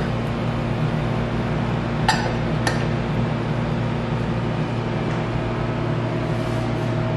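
A stainless steel lid clinks twice against a small frying pan as it is set on, about two seconds in and again a moment later, over a steady low hum.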